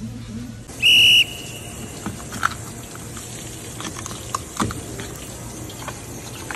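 A short, loud, steady high electronic tone, an edited-in sound effect, about a second in. After it, faint scraping and knocks of a knife working a red sea bream on a plastic cutting board, over a steady hiss and low hum.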